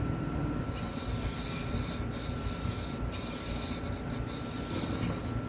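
Sharpie marker drawn along fiberglass through a rocket fin slot: a dry rubbing hiss in several strokes with short breaks between them.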